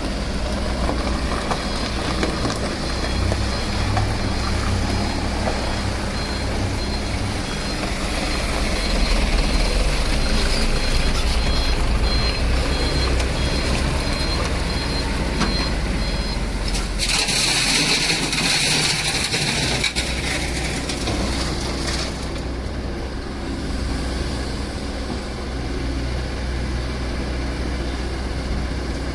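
Sany SY215C hydraulic excavator working, its diesel engine running steadily with a low rumble. A repeating high beep sounds through the first half, and a loud hiss lasts about five seconds just past the middle.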